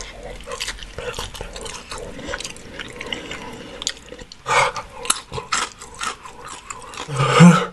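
Close-up wet eating sounds: chewing and lip smacking on a fried chicken wing covered in sticky hot sauce, with many small clicks as the wing is pulled apart by hand. A louder wet smack comes about four and a half seconds in and another near the end.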